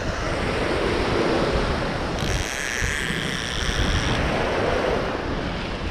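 Small waves breaking and washing at the shoreline, with wind buffeting the microphone. A faint high whine sounds for about two seconds in the middle.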